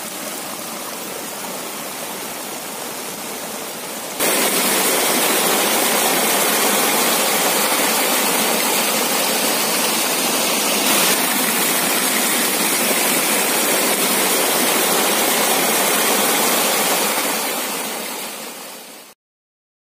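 Steady hiss of heavy rain, much louder from about four seconds in, then fading and cutting off near the end.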